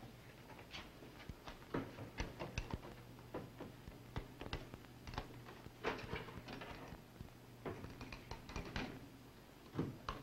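Scattered light clicks and knocks from footsteps across a hard floor and handling of a refrigerator door and lab apparatus, over a low steady hum.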